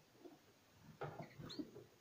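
Faint rustling knock about a second in, as the phone brushes a wire bird cage. Just after it comes a short, high, rising chirp from a small caged songbird.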